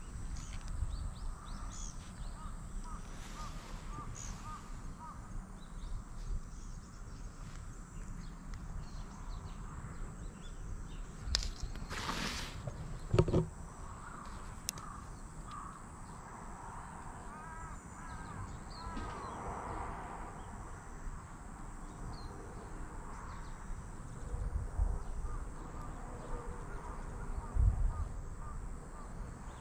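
Crows cawing repeatedly in the background, over low rumbling and rubbing noise close to the microphone. A brief loud noise comes about twelve seconds in, followed by a sharp click.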